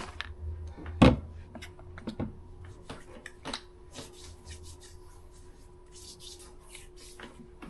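Light handling noises in a small room: a sharp knock about a second in, then scattered soft taps and rubbing over a faint steady hum.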